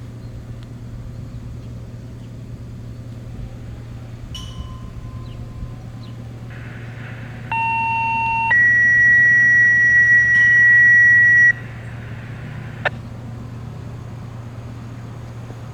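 Radio receiving a dispatch paging tone-out: hiss opens, then a short lower tone of about a second gives way to a steady, louder, higher beep held for about three seconds. A steady low hum runs underneath, and a sharp click comes about a second after the tones stop.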